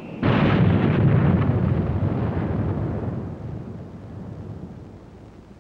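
Jet aircraft roar that starts suddenly and loud, then fades away steadily over about four seconds.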